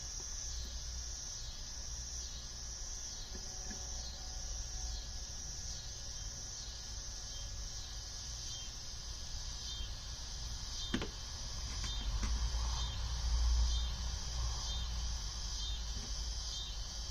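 Insects, likely crickets, chirring steadily in a high continuous chorus, with a low hum beneath. A single sharp click sounds about eleven seconds in.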